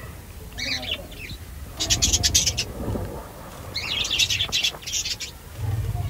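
Budgerigars chirping in quick, high bursts, three bouts of rapid chirps.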